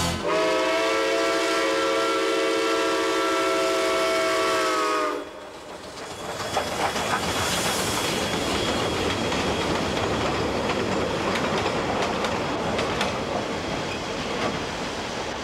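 Steam locomotive's chime whistle blowing one long steady chord for about five seconds, dropping slightly in pitch as it cuts off. Then the steady rushing noise of the working locomotive and train, fading a little near the end.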